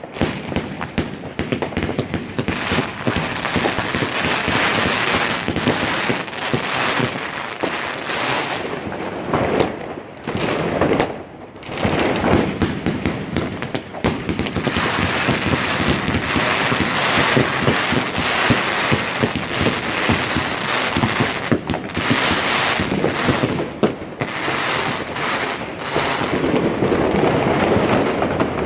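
Katan 'Big Cactus' firework going off: a dense, continuous crackling of many sharp pops, easing briefly about ten seconds in before picking up again.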